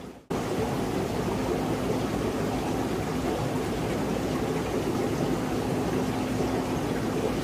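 Aquarium filter and pump running: a steady rush of moving water with a faint low hum that comes and goes. The sound drops out briefly just at the start.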